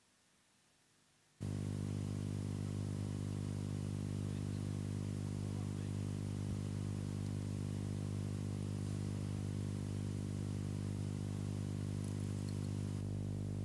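A steady low electrical hum with many evenly spaced overtones, coming in suddenly after a second and a half of near silence and holding without change.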